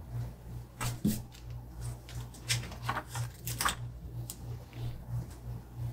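Paper sticker sheet crackling and rustling as stickers are peeled off and pressed down by hand, a run of short irregular crinkles and taps. A low, evenly pulsing hum runs underneath.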